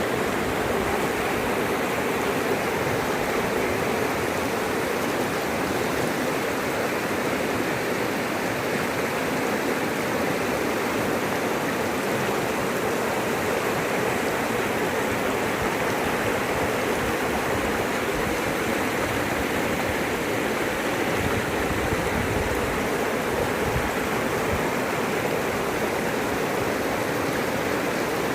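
Floodwater rushing steadily: a dense, unbroken noise of fast, turbulent water.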